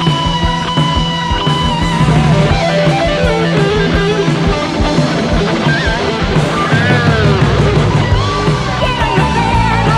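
Rock band playing live: electric guitar over bass and drums, with the guitar's notes sliding and bending in pitch in the second half.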